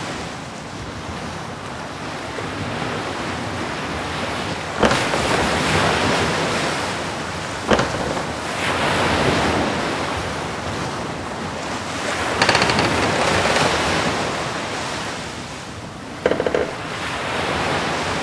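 Sea waves sound effect: a wash of surf that swells and falls back every few seconds, with two sharp clicks and a brief pitched burst near the end.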